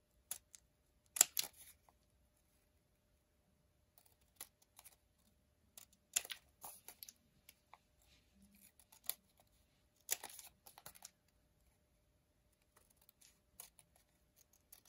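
Small scissors snipping through folded origami paper, trimming off the overhanging flaps: short sharp snips in small clusters with quiet pauses between.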